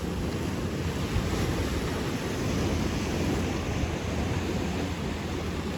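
Steady wind and surf noise at the shore, with wind buffeting the microphone and heavy low rumble.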